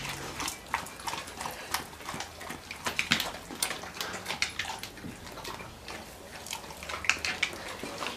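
Two dogs, a German Shepherd and a large white dog, eating spaghetti off plates: irregular wet smacking and lapping sounds.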